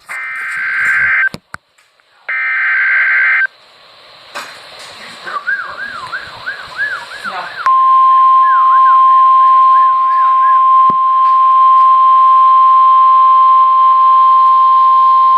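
Emergency Alert System data header: two harsh, screechy digital bursts about a second long each, then a few seconds of warbling tones, then about halfway through a loud, steady single-pitch alert tone (the NOAA Weather Radio warning alarm tone) held to the end. This signals the start of a new severe thunderstorm warning broadcast.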